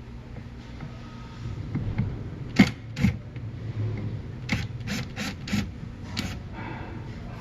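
A series of sharp clicks and knocks from hand tools and a plastic trim panel being worked loose, two close together and then a quicker run of four or five, over a steady low hum.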